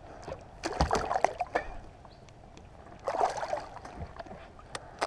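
Water splashing and sloshing beside a kayak as a hooked bass thrashes and is lifted out of the water, in two bouts about a second in and about three seconds in, with a few light knocks near the end.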